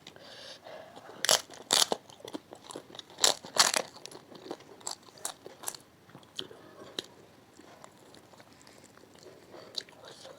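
Close-miked biting and chewing of crunchy food. There are four loud crunches in the first four seconds, then many softer chewing clicks that thin out over the last few seconds.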